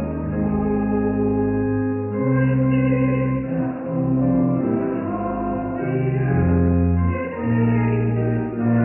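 A choir singing with instrumental accompaniment: held notes that change every second or two over a steady low bass.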